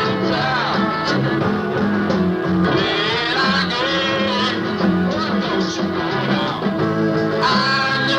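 Live rock band playing, guitars to the fore over bass and drums, from an old cassette recording that sounds very rough, with little top end.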